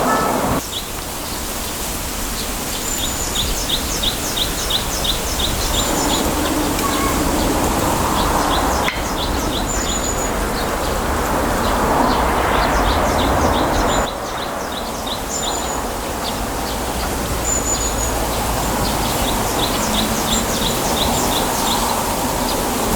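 Small birds calling in rapid runs of short, high chirping notes, repeated several times, over a steady rush of wind through bamboo leaves. The background rush steps up or down abruptly a few times.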